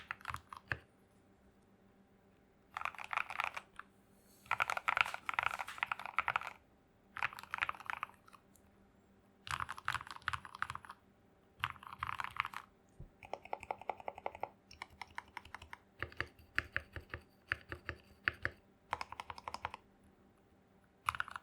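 Typing on a Feker84 mechanical keyboard with Gateron Yellow linear switches: rapid keystrokes in bursts of one to two seconds, with short pauses between them. A burst about thirteen seconds in sounds lower and deeper than the rest.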